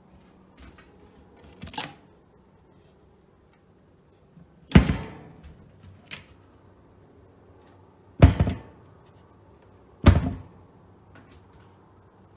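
Kitchen cabinet doors and drawers being opened and shut by hand, each closing a sharp thunk. One softer knock comes first, then three loud thunks a few seconds apart, the first of them the loudest.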